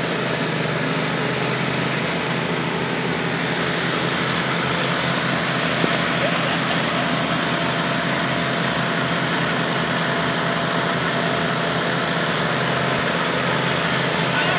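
Riding lawn mower engine running steadily, with a fast, even low putter under a dense mechanical din that gets a little louder partway through.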